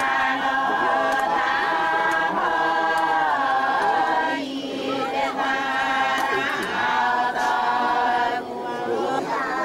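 A large group of voices singing a tuki song together, unaccompanied, in long held notes that shift in pitch together.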